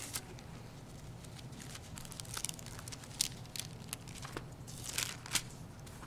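Faint rustling and crinkling of thin Bible pages being turned at a lectern, with scattered short rustles and light clicks, over a steady low room hum.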